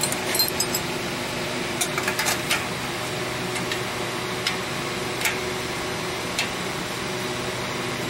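Scattered light metallic clicks and clinks of hand wrenches handled on the pipe fittings under an air compressor's pressure switch, over a steady machine hum.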